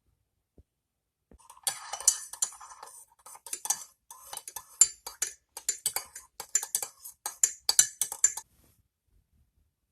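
A utensil clinking and scraping against a dish, many quick small clinks in a busy run that starts about a second and a half in and stops near the end.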